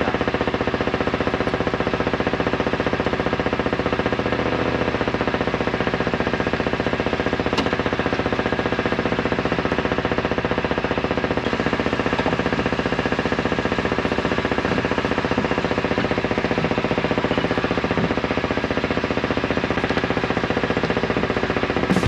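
Boat engine running steadily at an even pitch, with a rapid, regular pulse.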